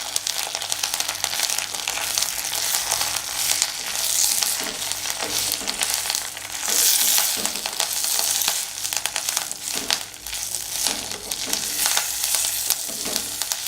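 Fresh medicinal leaves sizzling in a little oil in a kadai while they are stirred, a steady frying hiss broken by frequent short scrapes against the pan.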